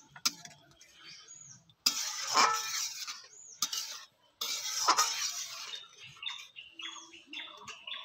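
Metal spoon stirring and scraping in a steel karai of watery curry: two longer noisy scraping strokes about two and five seconds in, with lighter scrapes and clinks after.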